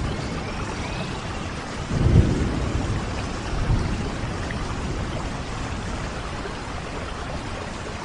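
Steady rain with a low rumble of thunder swelling about two seconds in, and a shorter rumble a second and a half later.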